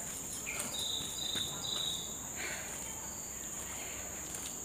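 Steady high-pitched drone of insects in forest undergrowth, with three short high chirps about a second in. Faint footsteps crunch on the dirt trail.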